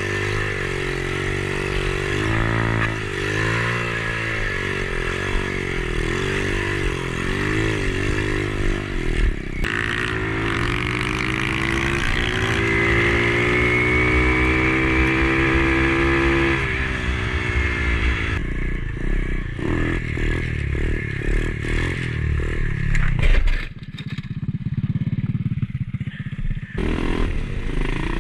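A pit bike's single-cylinder four-stroke engine heard up close from the bike itself, the revs rising and falling through the gears. About ten seconds in it revs up and holds a steady high pitch for several seconds, then drops off, with a sharp knock a little later as the bike jolts over rough ground.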